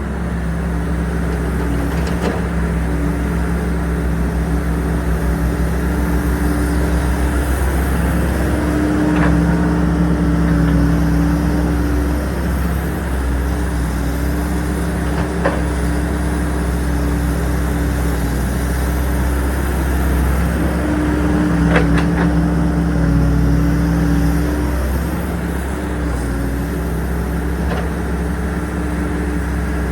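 Hydraulic excavator's diesel engine running steadily. It swells louder twice for a few seconds, as under hydraulic load, with a few sharp clicks and knocks.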